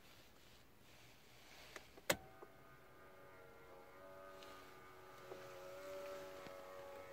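A sharp click as the light stalk of a 2002 Smart Fortwo CDI is switched, then a faint, steady electrical whine of several tones that sets in right after and grows a little louder. This is the unexplained noise that comes on when the lights ('dimmers') are turned on.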